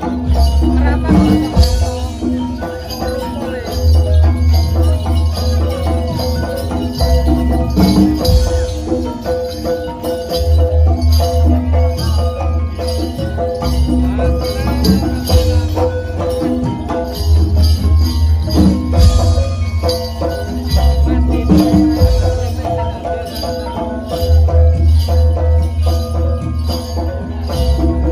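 Live East Javanese jaranan gamelan music: metallophones play a repeating melody over regular drum strokes, with a deep bass that swells in stretches of a few seconds.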